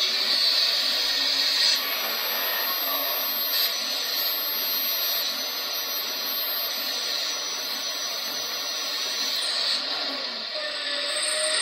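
Hydraulic pump of a 1:14.5 scale Metalhobi Hidromek H4 500 RC excavator running steadily with a machine-like whirr as the boom and demolition crusher head move.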